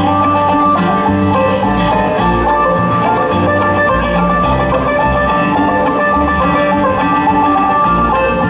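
Bluegrass band playing an instrumental break with no singing: quick plucked string notes over a pulsing bass line.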